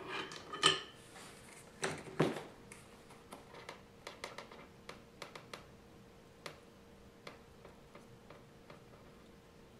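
Light clicks and taps of a small DC fan motor and a soldering iron being handled while a wire is soldered to the motor's terminal. Two louder knocks come about two seconds in, then a run of faint ticks that thins out.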